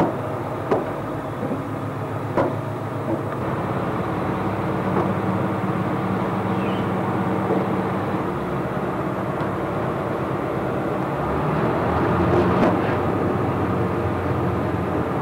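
Tour boat's engine running steadily as the boat cruises along, a low even hum with a few light knocks.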